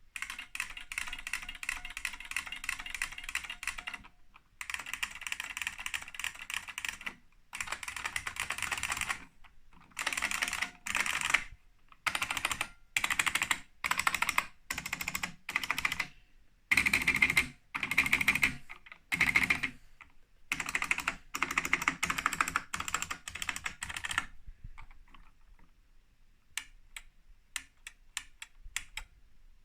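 IBM Enhanced Keyboard (part no. 1389969) with buckling-spring keys being typed on: fast, loud clicking in runs of a few seconds, then shorter bursts of about a second each. From about 24 s in, only a few faint single key presses.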